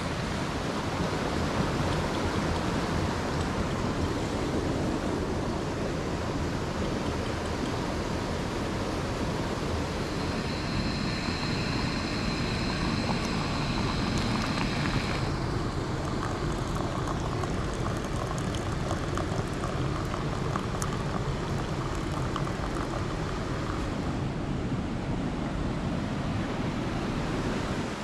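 Steady rushing of a rocky mountain creek, an even wash of water noise, with a higher hiss joining for a few seconds near the middle.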